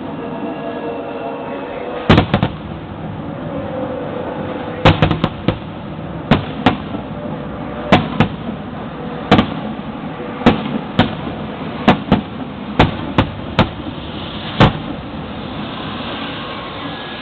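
Fireworks shells bursting: a string of about fifteen sharp bangs at irregular spacing, sometimes two close together. They stop a couple of seconds before the end.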